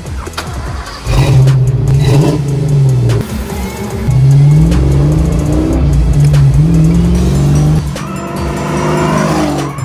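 Fox-body Mustang accelerating hard, its engine revving up through a gear, dropping back at the shift about three seconds in, then pulling up again and easing off near the end.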